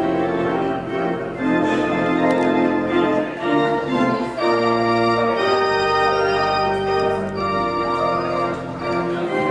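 Organ playing slow music in sustained chords, the notes changing every second or so.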